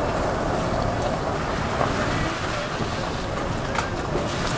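Pickup truck driving slowly along a muddy, puddled dirt track: a steady engine rumble mixed with tyre noise, and wind buffeting the microphone.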